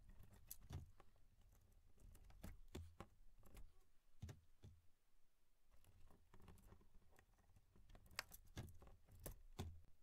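Faint, scattered clicks and light rustling as insulated wires and red plastic crimped butt connectors are handled and sorted in a car's wiring harness, with a closer run of sharper clicks near the end.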